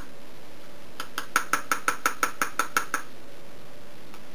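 A metal tablespoon tapped quickly against a plastic funnel: about a dozen light clinks at about six a second for two seconds, knocking a heaping spoonful of dry powder down through the funnel into a battery cell.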